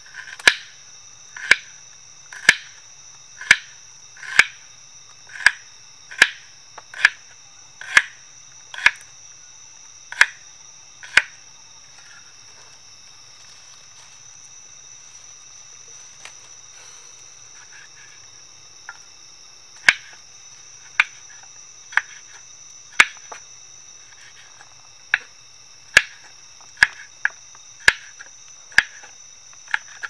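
Large kitchen knife chopping on a wooden cutting board: sharp knocks about once a second, pausing for several seconds midway, then resuming more irregularly. A steady high-pitched insect drone, like crickets, runs underneath.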